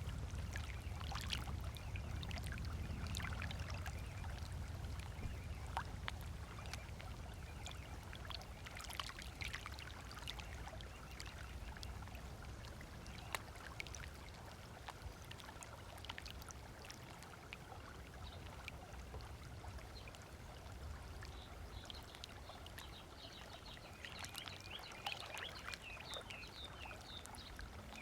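Small waves lapping on a sandy beach shore, with scattered splashes and trickles over a low, steady rumble that eases after the first several seconds. A bird chirps a few short, high notes near the end.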